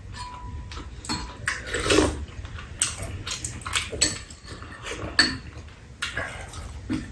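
Metal spoons clinking against ceramic bowls as people eat soup and rice, a scattered run of short clicks, with slurping and chewing between them.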